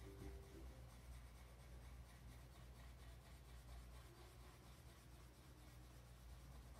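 Faint scratching of a colored pencil shading on a paper worksheet, over a low steady hum.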